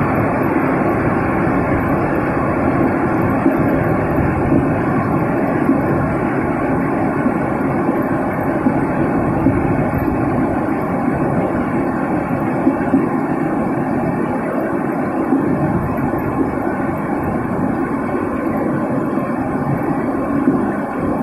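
Heavy hailstorm: a loud, steady roar of hailstones and rain pelting the ground, with a few sharper hits standing out here and there.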